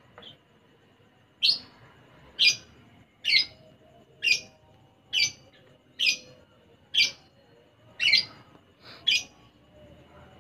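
Male lovebird calling in a steady series of nine loud, sharp chirps about a second apart. This is the nonstop calling that lovebird keepers call konslet.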